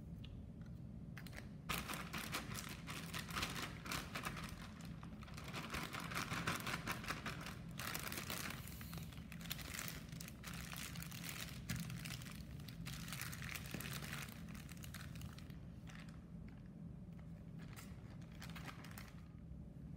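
Plastic zip-top bag crinkling and rustling as it is handled, sealed and pressed flat, dense from about two seconds in and thinning out near the end.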